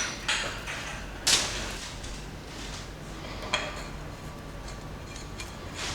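Metal shelving poles and connector fittings being handled: a handful of scattered knocks and scrapes, the loudest about a second and a half in.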